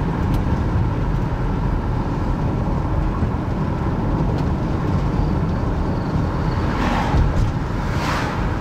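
Steady low rumble of a car's engine and tyres on the road, heard from inside the cabin while driving. Near the end come two brief rushes of noise as oncoming cars pass.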